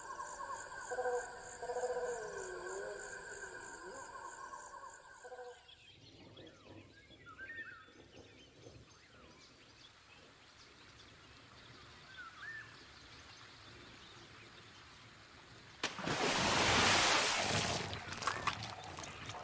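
A short tonal intro sting, then faint outdoor ambience with a few brief bird chirps. Near the end a loud, steady rush of flowing stream water starts suddenly.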